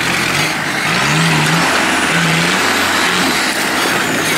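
Modified off-road pickup truck's engine revving hard under load on a steep dirt climb, in about four bursts, its pitch rising and holding, then dropping between them.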